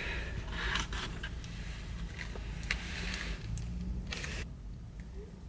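Soft rustles and small clicks from a paper fry carton being handled, over a low steady hum inside a car, with one stronger rustle a little after four seconds in.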